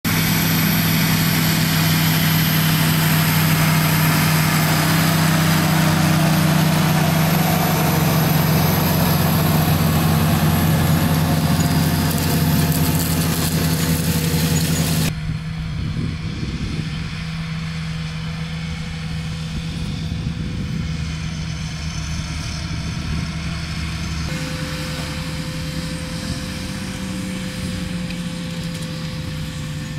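John Deere 8320R tractor's diesel engine running steadily while pulling a row-crop planter through a field. It is loud for about the first half, then drops suddenly to a quieter, thinner sound, and a steady whine joins it in the last few seconds.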